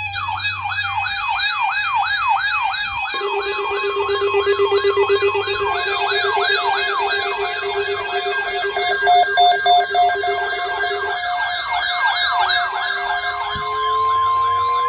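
Several electronic sirens sounding together: a fast yelp sweeping up and down about two to three times a second over steady alarm tones. A steady high tone joins about two thirds of the way in, and a slow rising wail starts near the end.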